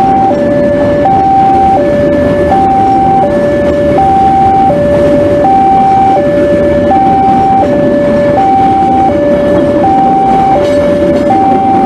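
Railway level-crossing alarm sounding a steady two-tone high-low signal, switching about every 0.7 s, which warns that the crossing is closed while a train passes. Under it is the steady rumble of the KA Brantas passenger train's coaches rolling through the crossing.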